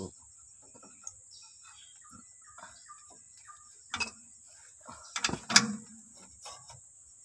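Scattered light clicks and knocks of a Toyota Hilux's new parking brake cable being handled and pressed into plastic retaining clips on the underbody, with louder clacks about four and five and a half seconds in.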